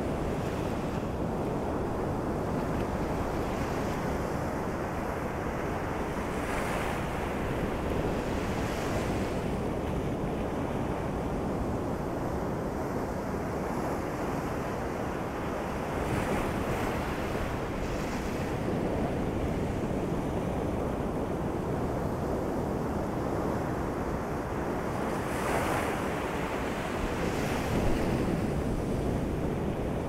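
Ocean surf rolling onto a beach: a steady rush of water with brighter hissing swells as waves break and wash up, several times, a few seconds apart.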